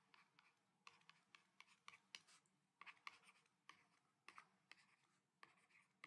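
Faint scratching and tapping of a stylus writing by hand on a tablet surface, in short irregular strokes.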